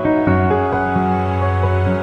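Background music: a slow, soft instrumental with sustained chords, changing chord just after the start.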